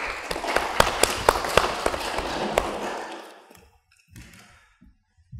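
A small audience applauding, fading out after about three seconds.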